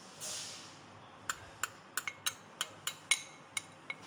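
A steel spoon clinking and scraping against a small glass bowl, about ten sharp clinks at an uneven pace of three or four a second, as ground almond is scraped out of it into the pan. A brief soft hiss comes just before the clinks.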